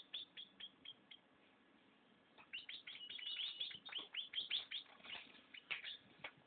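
Hand-fed baby birds' begging chirps: rapid, short, high chirps, each dropping in pitch, several a second. They pause about a second in, then pick up again in a dense run.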